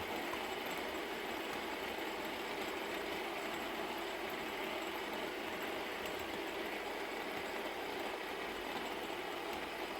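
Metal fidget spinner spinning freely, its bearing giving off a steady, rattly whir.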